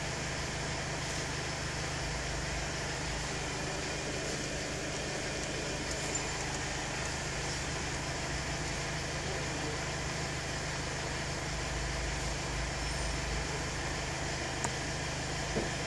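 Steady low hum and hiss of a car idling, heard from inside the cabin, with a couple of faint clicks near the end.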